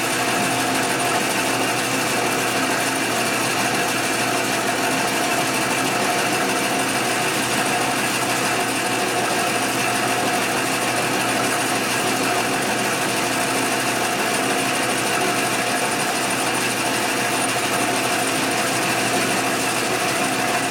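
Metal lathe running steadily, its headstock gears giving a constant whine, while the carriage takes a long turning cut along a bar held in the chuck.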